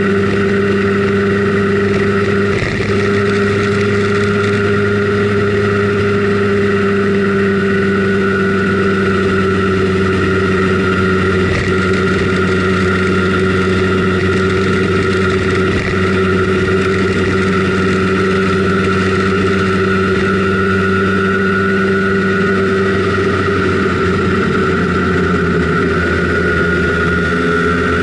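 A Simson Schwalbe KR51/2 scooter's 50 cc single-cylinder two-stroke engine running at a steady cruising pitch under way. Its note shifts slightly near the end.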